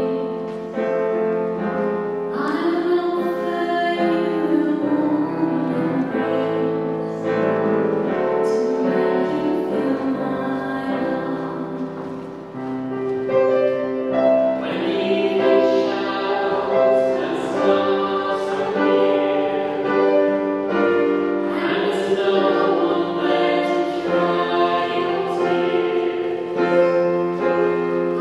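Piano playing a slow ballad, with a singing voice holding long notes.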